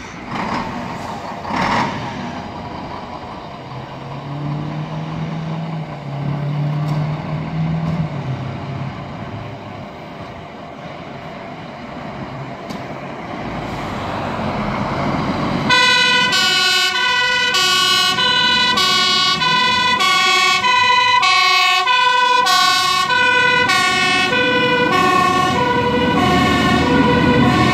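Fire engine pulling out on an emergency call: first its engine running and growing louder as it rolls out of the station. About halfway through, the two-tone siren starts suddenly, switching back and forth between two pitches over the engine as the truck drives off.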